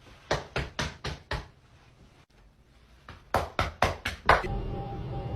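Two runs of five sharp knocks, about four a second, with a short quiet gap between them. Near the end, a steady low hum with a faint tone comes in.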